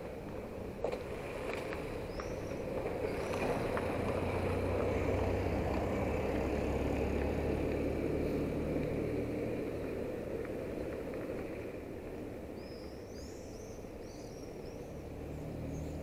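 Street ambience: a low vehicle engine hum swells over a few seconds and fades again, with short bird chirps a few seconds in and again near the end.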